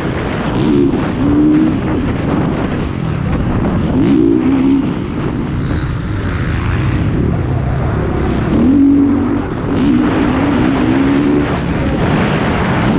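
Motocross bike engine heard close up from onboard, revving up and falling back several times as the bike is ridden hard round the track, over a constant rushing noise.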